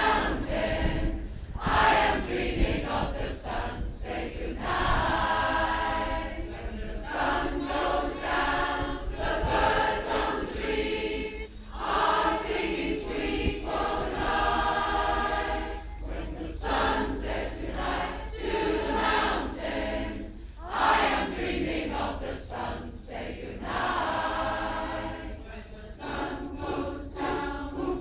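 Large choir of mostly women's voices singing held chords, in phrases of a few seconds separated by short breaks.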